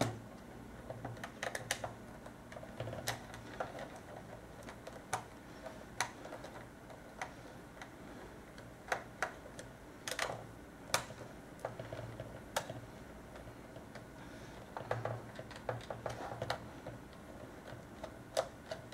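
Hand screwdriver backing Phillips screws out of a plastic Nerf blaster pump grip: scattered light clicks and taps of the tool against the screws and plastic, some in short clusters.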